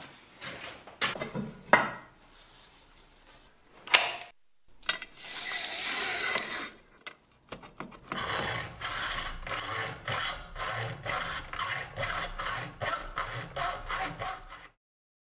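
Hand saw cutting through an aluminium extrusion profile, with a run of regular rasping back-and-forth strokes from about 8 seconds in that stops abruptly near the end. Before that come a few knocks and a short scrape from handling and marking the profile.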